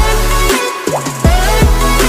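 Instrumental pop music with a steady kick-drum beat and bass. The bass and drums drop out briefly about half a second in, and the beat comes back after about a second.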